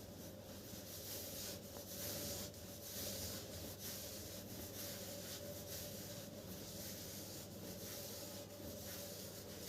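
Faint rubbing and rustling from hands working on the leg and clothing, with a few light ticks, over a steady low hum.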